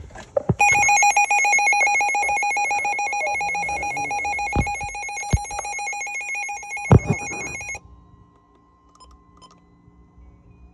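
NOAA weather alert radio sounding its loud, rapidly trilling alert alarm for a severe thunderstorm warning, with a few handling knocks. The alarm cuts off sharply about eight seconds in, leaving only a faint steady tone.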